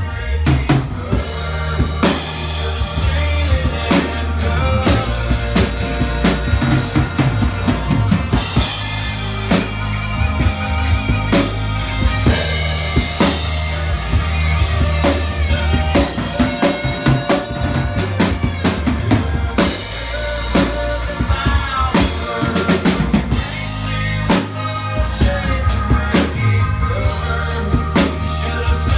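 Band music with a prominent drum kit, bass drum and snare keeping a steady beat under sustained instrument notes, with no singing.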